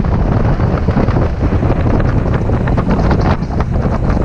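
Loud wind buffeting the microphone of a jon boat under way, with the boat's motor running underneath.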